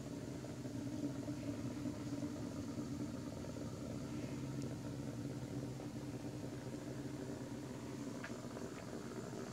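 Steady mechanical buzz of a Nano Bug robot insect's vibration motor running as it moves in a plastic roller-ball track, with a couple of faint ticks near the end.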